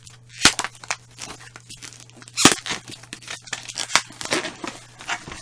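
Packaging being handled and torn open: crinkling, tearing and crackling, with a few sharper snaps, the loudest about two and a half seconds in.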